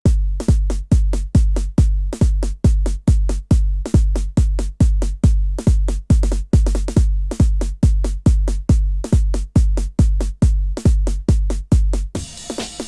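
Early-1990s hardcore techno: a lone deep kick drum from a drum machine pounding about two beats a second, each beat dropping in pitch, with a faint high tone held above. Near the end the kick drops out and a dense burst of noise takes over.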